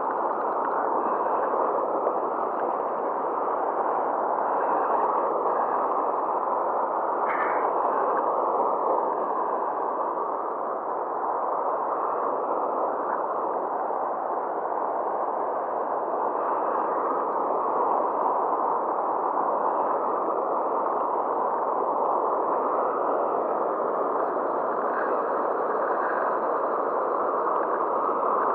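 Steady rushing of fast, churning river water pouring below a weir.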